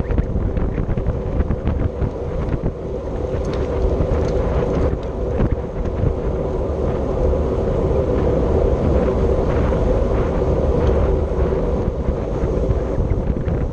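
Wind rushing over the microphone of a road cyclist riding at race pace, a steady loud rumble with a constant low hum underneath.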